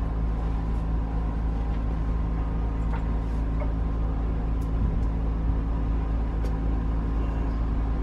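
A steady low machine hum with a few faint light clicks or taps over it.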